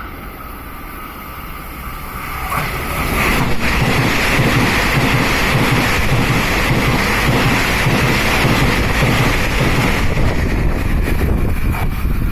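A train passing close at speed: the rumble and rail noise swell about two seconds in and stay loud.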